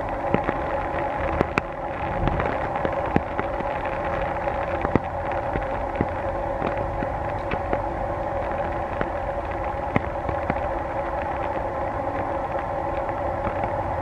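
Rain falling, with many irregular drops ticking on a hard surface close to the microphone, over a steady two-tone drone.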